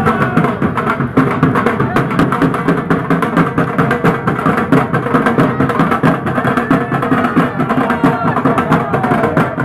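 A drum band beating large barrel drums in a fast, continuous rhythm of dense strikes.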